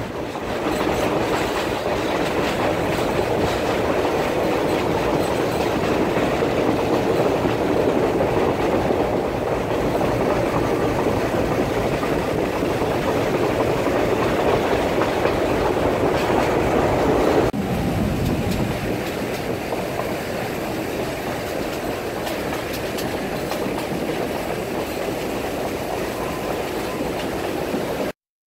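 Passenger train running along the track, heard from a window of the moving carriage: a steady rumble and rush of wheel and rail noise with some clatter. About two-thirds of the way in, the noise suddenly drops and turns duller.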